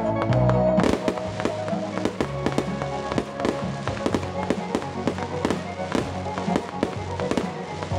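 Fireworks going off: many bangs and crackles in quick succession, starting about a second in, with music playing underneath.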